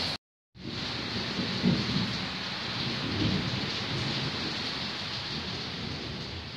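Steady heavy rain hiss with a low rolling thunder rumble underneath, cut off briefly just after the start before resuming.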